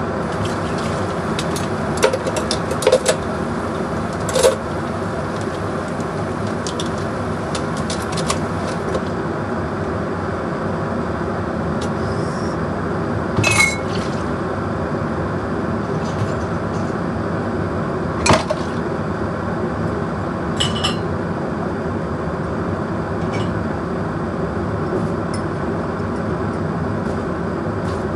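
A few sharp clinks of glass and dishes set down on a counter, over a steady background hum.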